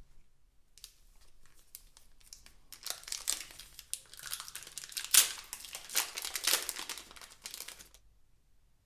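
Pokémon card packaging crinkled and torn open by hand: a dense run of crackling and ripping that builds up, has one sharp loud rip in the middle, and stops suddenly about a second before the end.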